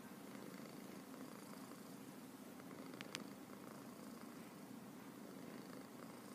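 Domestic cat purring steadily and faintly, contented. A single brief click about three seconds in.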